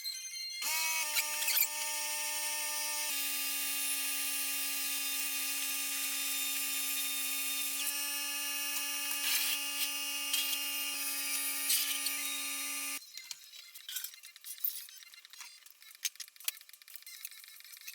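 An electric power-tool motor spinning up and running with a steady whine, its pitch dropping slightly twice, then cutting off suddenly, followed by faint clicks and rattles.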